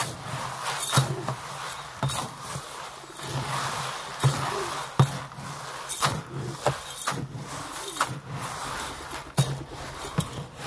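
Mixed pigeon grain being turned and poured with a scoop in a plastic tub, so the powder supplement coats the oiled seed. The seeds rustle and patter as they fall, with repeated sharp knocks of the scoop against the tub.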